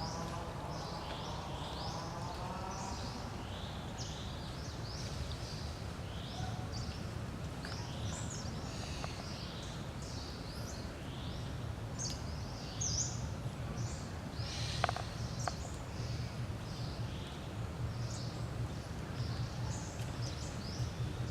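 Many small birds chirping throughout over a steady low rumble of outdoor noise. A wavering pitched call is heard in the first few seconds, and there is a single sharp click a little past the middle.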